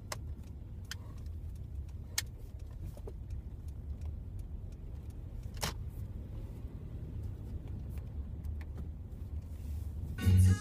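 Steady low rumble of a Suzuki car heard from inside the cabin while driving, with a few light clicks and rattles. Loud music cuts in near the end.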